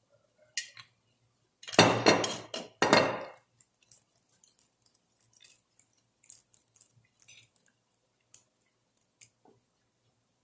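Kitchen handling sounds: a glass clink about half a second in, a few loud scraping rustles around two to three seconds in, then light ticks and taps as hands spread olive oil over raw fish fillets in a metal baking tray.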